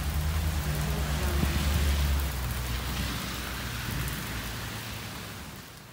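Heavy rain pouring down on a lawn and garden, a steady hiss, with a low rumble in the first couple of seconds. The rain fades out near the end.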